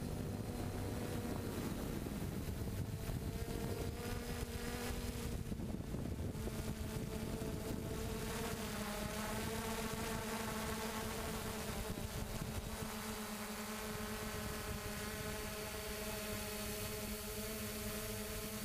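3DR Solo quadcopter's motors and propellers droning steadily as it flies, a stack of buzzing tones that shift slightly in pitch a few times. Wind rumbles on the microphone underneath.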